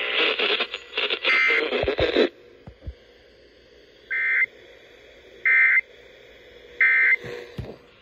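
NOAA Public Alert weather radio's speaker: a couple of seconds of noisy radio sound, then three short, identical warbling data bursts about a second and a half apart, the SAME end-of-message code that closes the EAS warning broadcast. A few low thumps of the radio being handled are mixed in.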